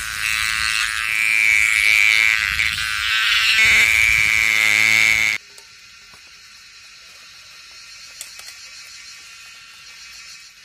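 Cicada held between fingers, buzzing loudly: a harsh, high, wavering buzz that cuts off suddenly about halfway through. A much quieter steady hiss with a few faint clicks follows.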